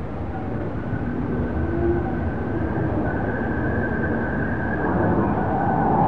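King quail calling: a faint, thin, drawn-out whistle held steady over background hiss, stepping up slightly in pitch midway, with a louder, lower whistle beginning to swell near the end.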